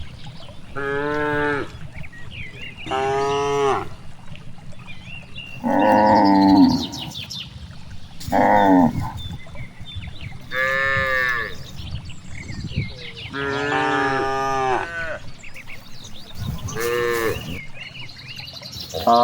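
Cows mooing again and again, about seven separate short moos spaced two to three seconds apart, with another starting at the very end.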